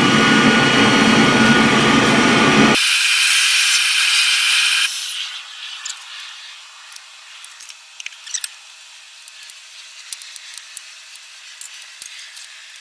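Metal-melting furnace burner running loud, then shut off about three seconds in; a hiss carries on for about two more seconds and dies away. After that there are only faint scattered clicks and clinks, most likely the tongs and crucible being handled.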